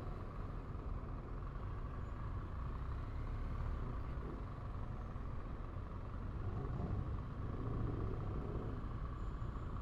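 BMW R1200GS boxer-twin motorcycle engine running at low speed in slow traffic, a steady low rumble with light road and wind noise.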